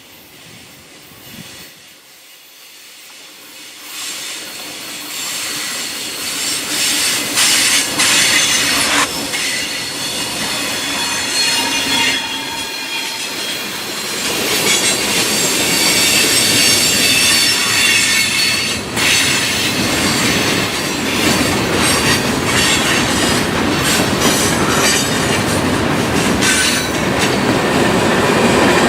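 A freight train approaching and rolling past, its steel wheels squealing high and shrill against the rails with some clickety-clack. It grows steadily louder and ends close by.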